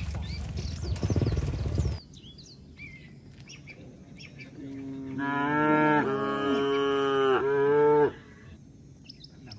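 A cow mooing: one long drawn-out moo of about three and a half seconds in the second half, broken twice. Faint birds chirp throughout, and a low rumbling noise in the first two seconds stops abruptly.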